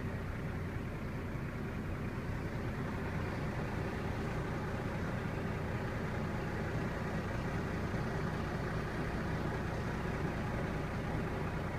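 Heavy truck's diesel engine idling steadily, heard from inside the cab.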